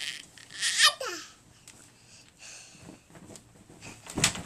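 A toddler squealing and laughing, with one loud high squeal sliding down in pitch about a second in, then a thump near the end as he jumps in the crib.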